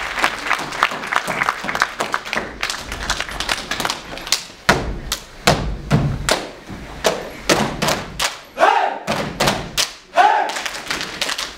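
Dancers' stomps and claps on a wooden stage, a fast irregular run of thuds and slaps, with two short shouts from the dancers near the end.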